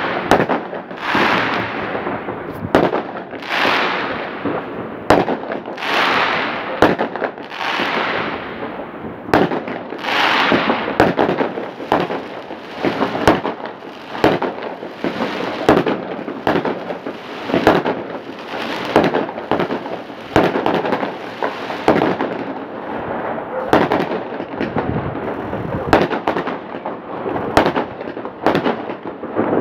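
Aerial fireworks going off in a continuous barrage: sharp bangs one or two a second, many followed by a fading crackling hiss, overlapping throughout.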